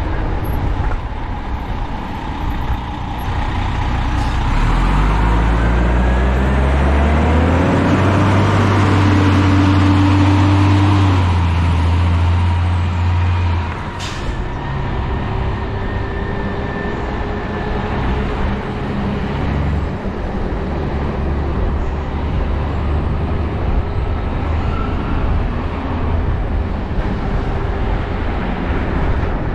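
A heavy motor vehicle's engine accelerating close by: its low note rises over a few seconds, holds, then drops away about halfway through with a sharp click. Steady wind and road rush from riding lies underneath.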